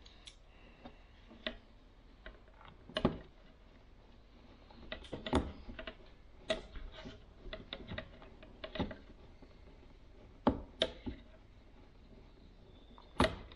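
Hand screwdriver driving screws into a plastic electric hook-up socket housing: irregular clicks, ticks and small scrapes of the screwdriver tip and screws against the plastic, several sharper clicks a second or two apart.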